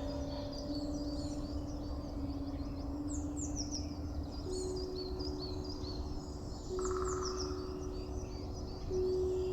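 Recorded songbirds twittering: many quick, high, falling chirps. Under them run long held low notes of ambient music that change pitch every few seconds.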